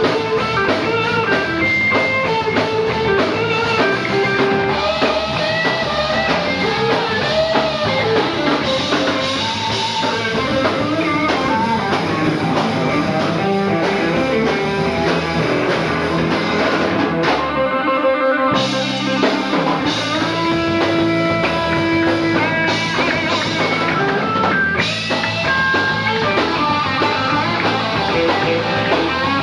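Live rock band playing an instrumental passage: an electric guitar plays a solo of moving single-note lines over a drum kit. The band thins out in a short break about halfway through, then picks up again.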